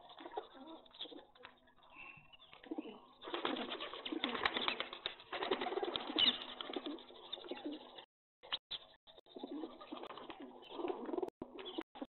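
Pigeons cooing, with other bird calls mixed in, loudest in the middle. The sound cuts out abruptly for brief moments several times near the end.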